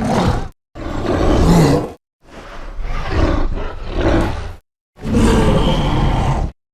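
Monsterverse King Kong (2017) roar sound effects: four separate rough, growling roars, each between half a second and two and a half seconds long, cut apart by short dead silences.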